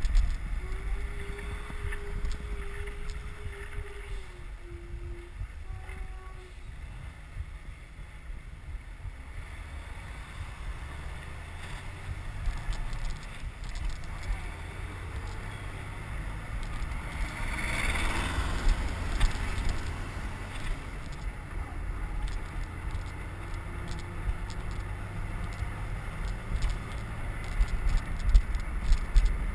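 Wind buffeting the microphone of a bicycle-mounted camera riding fast behind a car, a steady low rumble with road noise, and a louder rushing swell about two-thirds of the way through.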